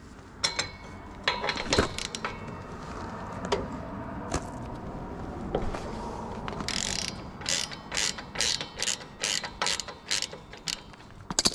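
Hand ratchet on an 11/16-inch socket working loose the front grill bolts of a compact tractor, with scattered metal clicks and clinks at first. About 7 seconds in it settles into a steady run of ratchet clicks, about three a second.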